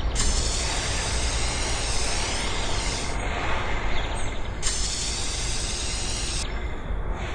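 Two long bursts of steady hiss as foundry sand in a wooden moulding flask is worked: the first lasts about three seconds, the second starts about a second and a half later and runs about two seconds. Each starts and stops abruptly.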